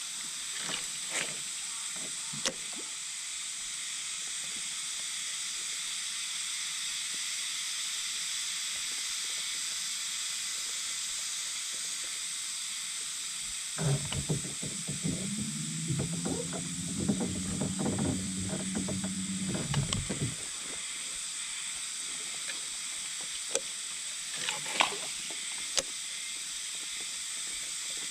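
Steady high buzzing of insects. For about six seconds in the middle, a low mechanical whir rises in pitch and then holds, mixed with knocks and clicks. A few single clicks come near the start and again near the end.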